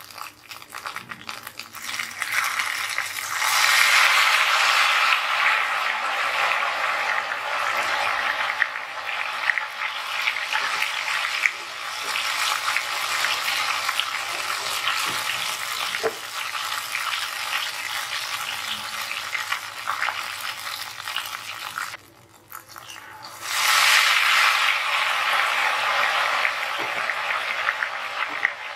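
Ghevar batter deep-frying in hot oil in a deep aluminium pot: dense sizzling and crackling of frothing oil. It swells sharply a few seconds in as batter goes into the calmed oil, breaks off for about a second and a half near the end, then surges again.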